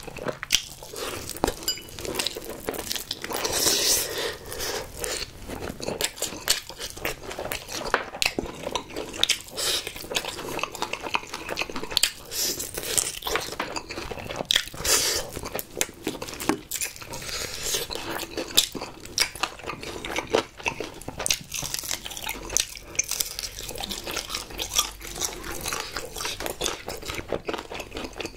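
Close-miked biting and chewing of sauce-glazed fried chicken: many irregular crunches of the fried coating and wet chewing, louder in stretches.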